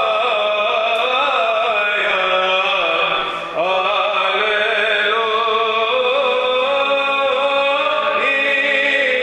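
Solo male cantor chanting a Lenten hymn in traditional Byzantine melody: a winding, ornamented vocal line over a steady held drone (the ison) sung by a second voice. The melody breaks off briefly about three and a half seconds in.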